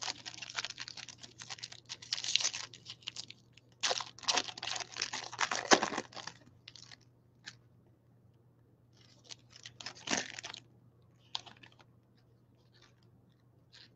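Foil wrapper of a baseball card pack being torn open and crinkled by hand, in three spells of crackling with a few light clicks between them.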